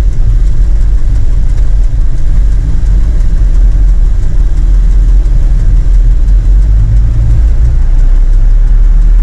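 Heavy engine running steadily with a loud low rumble, heard from inside a truck cab on a ferry's vehicle deck.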